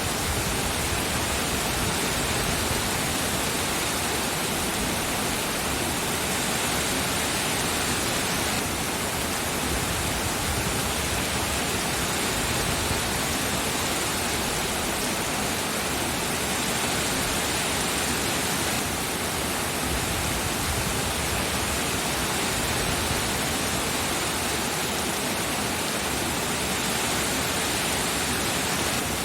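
Steady rain, a constant even hiss with no separate drops or thunder standing out.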